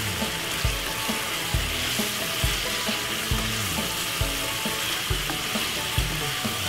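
Chicken, peppers and onions in soy and sweet chili sauce sizzling steadily in a non-stick wok as they are stirred with a wooden spoon, with a regular low thud about once a second underneath.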